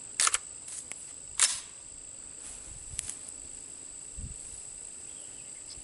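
Two sharp metallic clacks about a second apart, with a few lighter clicks around them, from the AR-15's action being handled, over the steady high buzz of insects.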